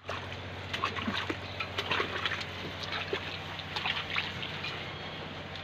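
Goats slurping and splashing with their muzzles in a rubber basin: irregular wet sucking and dripping noises, thinning out near the end, over a steady low hum.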